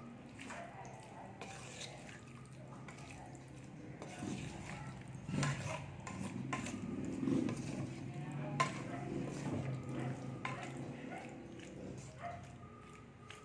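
Wooden spatula scraping and knocking against a nonstick frying pan while pork and vegetables in sauce are stirred. A few sharper knocks come in the middle.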